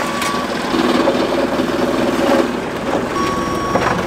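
Forklift engine running, with its reversing alarm beeping at the start and again near the end.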